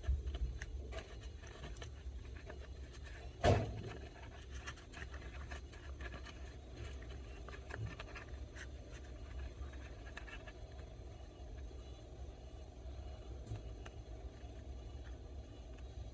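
Handling noise at a workbench: a low steady rumble with faint scattered clicks, and one sharp knock about three and a half seconds in.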